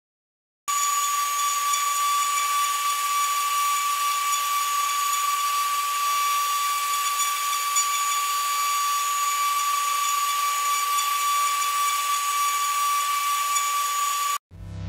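A 2.2 kW spindle on a Woodpecker DP1212 CNC router runs at high speed while a fine engraving bit cuts brass. It makes a steady high whine over a hiss, starting suddenly about a second in and cutting off just before the end, where music comes in.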